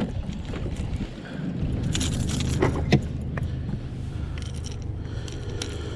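Metallic clicking and jangling of a crankbait's treble hooks and pliers as a small bass is unhooked by hand. Under it runs a steady low hum from the trolling boat's motor, which grows stronger about a second and a half in.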